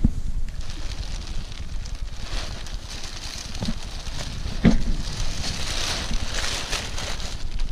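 Wind buffeting the microphone while the nylon fabric of a new paraglider wing rustles and crackles as it is handled and spread out. There are two short knocks a second apart, about four and five seconds in.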